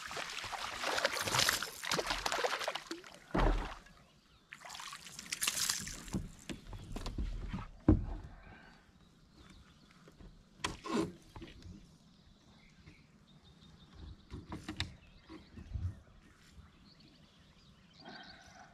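Water splashing and sloshing beside a kayak for the first few seconds and again briefly a few seconds later, with a few knocks on the hull and gear, then quieter small handling sounds.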